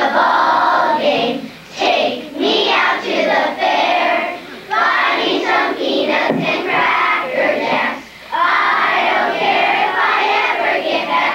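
A group of children singing together in phrases, with brief pauses between them.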